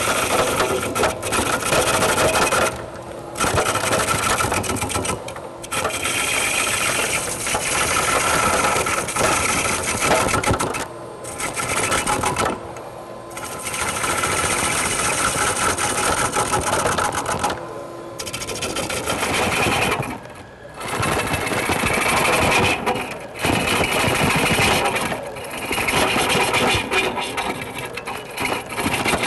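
Gouge cutting a spinning green birch log on a wood lathe, rough-turning the blank round: a continuous rough shearing of wood chips, broken by short pauses every few seconds when the tool comes off the wood.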